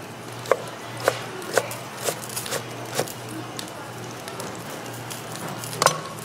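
Kitchen knife chopping a green onion stalk on a wooden cutting board: sharp knocks about twice a second for about three seconds. Near the end there is a louder clack as the knife is put down on the board.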